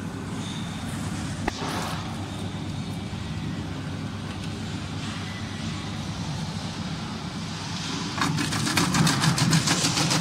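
SH30 electric vegetable cutting machine running with a steady motor hum. About eight seconds in it gets louder, with a fast run of sharp clicks as vegetables go through the blades and are cut into strips.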